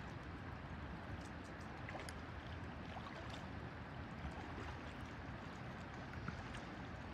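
Steady rush of a shallow river running over a rocky bed, with faint scattered ticks of water.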